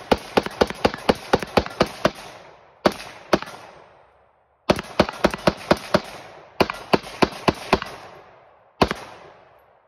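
AR-15 rifle fired rapidly in semi-automatic strings of about four to five shots a second, each shot ringing out with an echo. A string ends about two seconds in, two single shots follow, then two more strings and a last single shot near the end.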